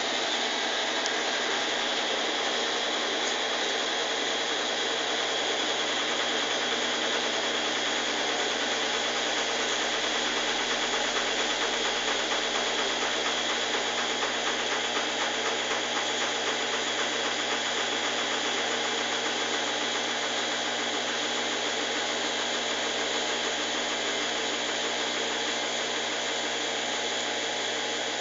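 Consul washing machine running steadily in an intermediate spin cycle, its motor and spinning drum giving a continuous whirring hum.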